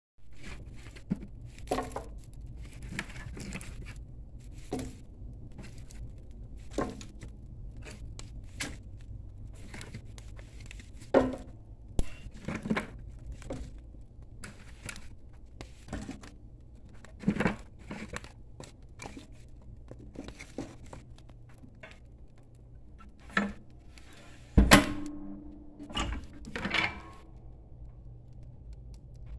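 Wood fire crackling and popping in a Harman Mark I coal stove, irregular sharp snaps over a low steady hum. A few louder knocks come near the end, one ringing briefly.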